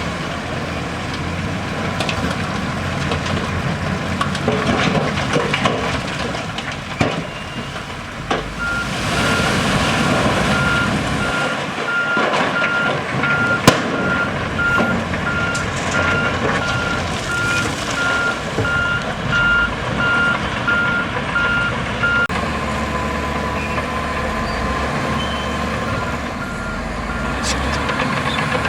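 Reversing alarm of a heavy earthmoving machine beeping about twice a second over diesel engine noise and occasional knocks. The beeping starts about a third of the way in, stops after roughly fourteen seconds, and returns more faintly near the end.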